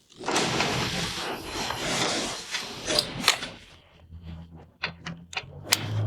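Hand tools working on a brake caliper as it is refitted: a scraping rub for about three seconds, then a run of sharp clicks, with a low hum underneath near the end.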